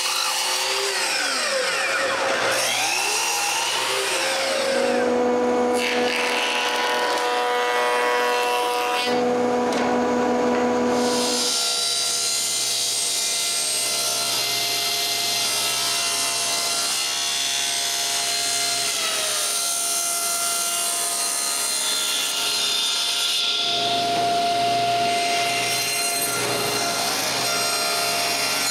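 Woodshop power tools cutting wood. The motors' pitch rises and falls in the first few seconds, then the machines run steadily through the cuts.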